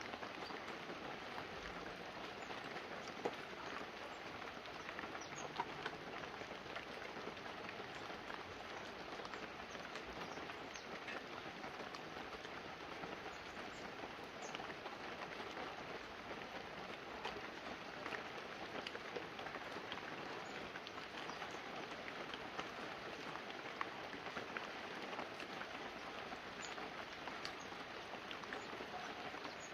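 Fine, steady rain falling on banana leaves and a roof: a continuous even hiss with many scattered drops tapping, and a few louder drops standing out now and then.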